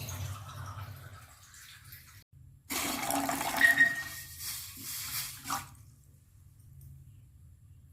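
Water poured from a glass into a cooking pot in two pours, the second longer and louder, for boiling a herbal decoction.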